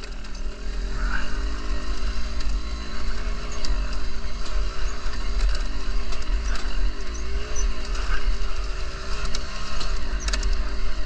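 Off-road motorcycle engine running while riding, its pitch rising and falling, over a heavy low rumble.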